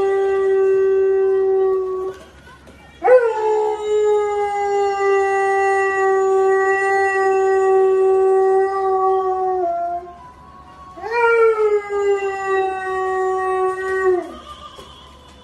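Adult husky howling in long, steady held notes. One howl stops about two seconds in, a second rises in about a second later and is held for roughly seven seconds, and a third lasts about three seconds. Each howl dips slightly in pitch as it ends.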